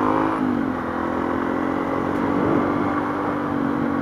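Motorcycle engine running under way; its note drops about half a second in, then holds steady as the bike picks up speed.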